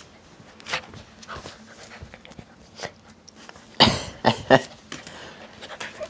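Dog making short vocal sounds in a small room, with a loud run of three close together about four seconds in.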